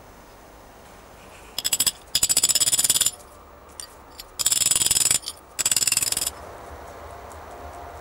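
Rapid metallic tapping as a steel rod is rattled against the inside of a thin metal lighter case on an anvil, in four quick bursts of under a second each.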